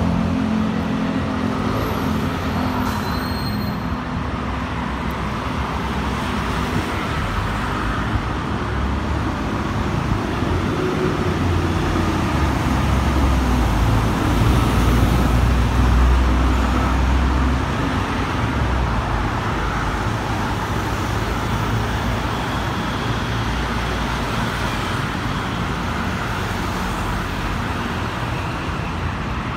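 Steady road traffic noise from a busy street, with a heavier vehicle's low engine rumble swelling and fading about halfway through.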